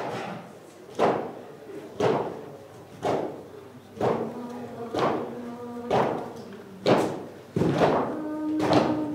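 Slow, steady beat of heavy thuds, about one a second, each ringing out in a large room, with long held pitched notes, like hummed or sung tones, over the beat in places: stage percussion for a theatre piece.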